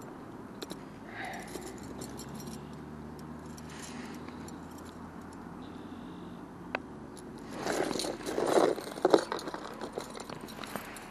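Metal chain fish stringer clinking and rattling as it is handled, with a louder burst of clattering and rustling about eight seconds in.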